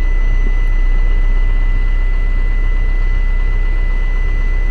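Isuzu truck's diesel engine idling steadily, a low even rumble, with a thin high-pitched whine running alongside.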